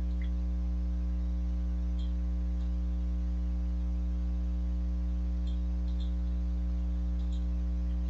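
Steady electrical mains hum from the recording chain, one unchanging low buzz with its overtones, with a few faint ticks.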